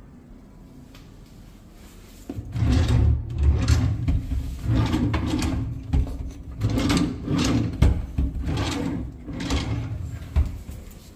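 Wooden wardrobe drawers being pulled open and pushed shut again and again on their runners. Each slide rumbles and the drawers knock as they close, from a couple of seconds in until near the end.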